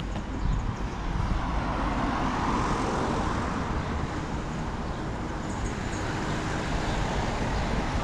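Road traffic noise from the street alongside, with one vehicle passing close by, swelling and fading about two to three seconds in.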